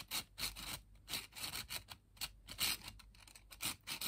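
3D-printed plastic puzzle pieces rubbing and scraping against each other as they are handled, a quick, irregular run of short scrapes.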